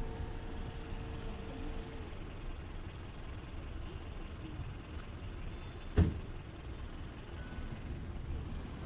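Low, steady rumble of road vehicles, with a small click and then a single sharp knock about a second later.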